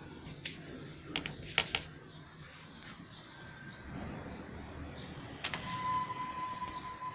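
Short, sharp bird chirps over a steady background hiss. About five and a half seconds in, a steady tone comes in and holds.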